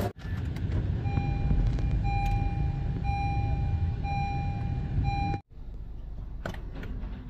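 A car's dashboard warning chime beeping five times, about once a second, over the low rumble of the car. After a short break the rumble is quieter, with a couple of soft clicks.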